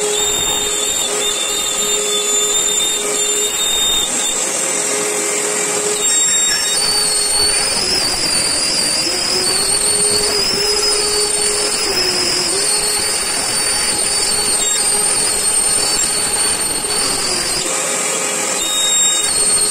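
CNC router spindle milling a white-faced board, together with a shop vacuum running as its hose sucks up the chips at the bit: a steady high whine over a continuous rushing noise. The whine shifts in pitch about six seconds in and again near the end.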